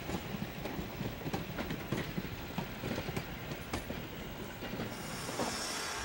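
Model freight cars rolling along the track, their wheels clicking irregularly over the rail joints with a low rumble underneath. About five seconds in, a steady hiss comes in.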